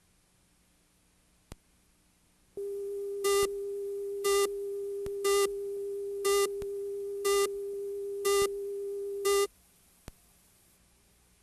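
Videotape countdown leader: a steady line-up tone starts about two and a half seconds in, with a short, louder beep every second, seven beeps in all. Tone and beeps cut off together about nine and a half seconds in, leaving faint tape hiss.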